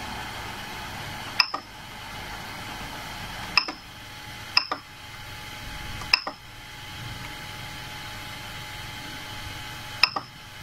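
Creality Ender 3 Pro control panel giving five short, high-pitched beeps as its rotary knob is pressed to step through the menus, over a steady background hum.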